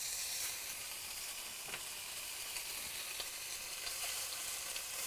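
Monkfish fillets searing in a very hot stainless-steel pan: a steady sizzle with scattered crackles and pops. It grows a little louder near the end as a second fillet goes in.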